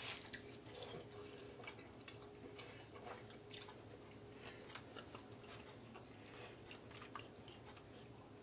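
Faint chewing of a bite of oven-baked chicken, heard as soft irregular clicks and smacks over a faint steady hum.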